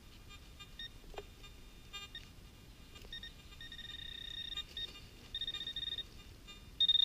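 Handheld metal-detecting pinpointer probe beeping in fast pulses as it is worked through the soil over a buried metal target. It sounds in short runs from about three seconds in, then much louder near the end as it closes on the target, which the detectorist expects to be a rusty nail.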